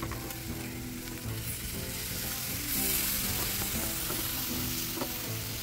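Meat skewers sizzling on a charcoal grill as sauce is ladled over them. The sizzle grows louder about halfway through.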